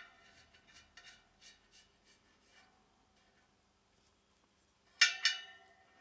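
Brass safety-valve fittings handled against a copper boiler shell: faint light ticks, then about five seconds in a sharp metallic clink that rings briefly, with a second clink right after.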